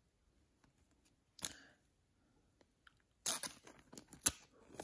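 A brief rustle of card handling about a second and a half in, then from about three seconds in a thin plastic card sleeve crinkling and crackling as a trading card is slid into it, with one sharp crackle a little past four seconds.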